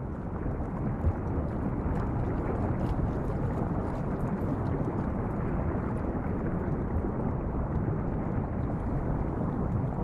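Steady, muffled rush of river water heard underwater, with a few faint scattered ticks.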